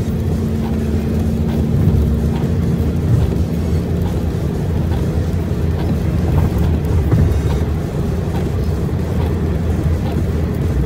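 Vehicle driving at highway speed on a rain-soaked road, heard from inside the cab: a steady low drone of engine and wet-tyre noise with a constant hum.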